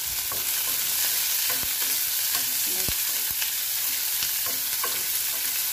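Chopped onion and green capsicum sizzling in hot oil in an aluminium kadai while a metal spoon stirs them, scraping and clicking against the pan a few times a second. The vegetables are being lightly fried.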